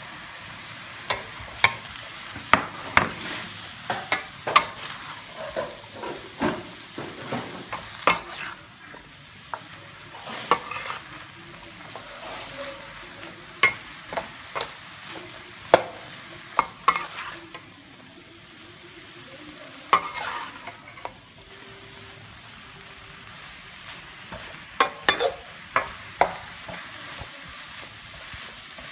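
Stir-frying noodles and vegetables in a metal wok: a steady sizzle with a spatula scraping and knocking against the wok in irregular sharp clacks.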